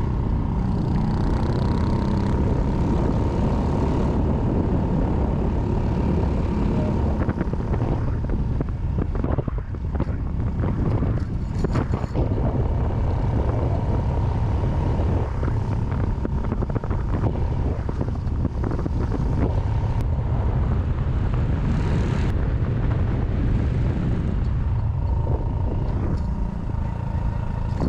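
Honda Cross Cub 110's single-cylinder four-stroke engine running steadily at road speed, with heavy wind rush over the microphone and a few scattered clicks and rattles.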